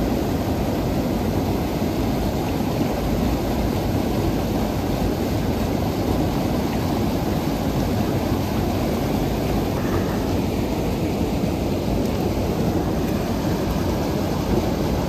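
River in flood rushing over rocks: a steady, loud rush of fast-flowing water.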